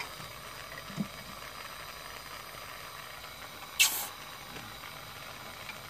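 Small jeweller's torch on a number three tip burning with a steady hiss as it heats a silver solder joint. A brief, sharp burst of noise about four seconds in, and a faint knock about a second in.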